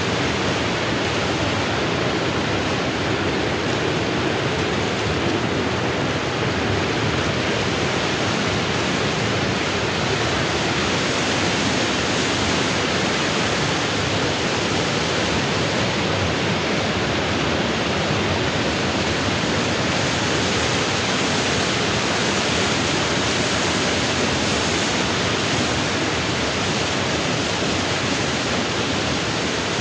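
Steady, unbroken rush of moving water: a dense, even hiss with no separate splashes or drips.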